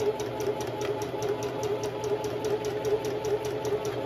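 Sewing machine running steadily as it stitches coiled cotton clothesline rope together, its motor humming under an even tick of needle strokes about six a second.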